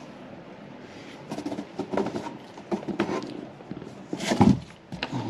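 Cardboard boxes knocking and rustling in an uneven string of bumps as cats climb about in them, with one louder thump about four seconds in.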